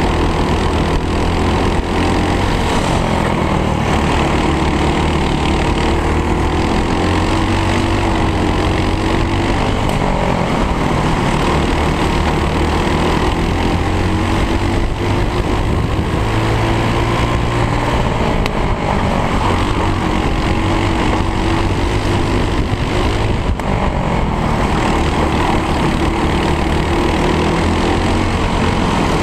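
Racing kart's Briggs & Stratton World Formula single-cylinder four-stroke engine under hard racing use, heard from the driver's helmet. The engine pitch climbs and drops repeatedly as the driver accelerates out of corners and lifts or brakes into them.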